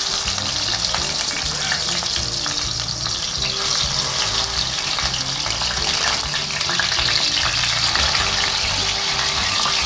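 Barracuda pieces sizzling steadily as they shallow-fry in a little oil in a stainless steel frying pan.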